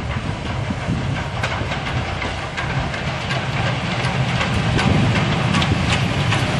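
SR Maunsell S15-class 4-6-0 steam locomotive No 847 and its coaches running in past the listener: a steady rumble with scattered clicks from the wheels, growing louder about five seconds in as the engine draws near.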